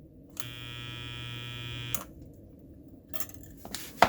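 Homemade microwave-oven-transformer spot welder buzzing with mains hum for about a second and a half as it welds two pieces of metal, then cutting off. A few light knocks follow, and a sharp click comes near the end.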